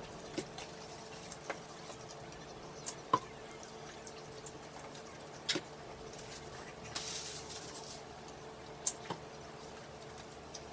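Close-miked eating sounds from a person chewing McNuggets: a few scattered soft clicks and smacks, the sharpest about three seconds in, and a brief hiss about seven seconds in.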